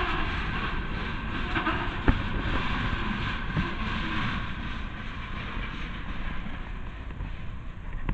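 Freight train cars rolling past, steel wheels on rail with a steady rumble and rattle and one sharp clank about two seconds in. The sound grows a little quieter in the second half as the cars go by.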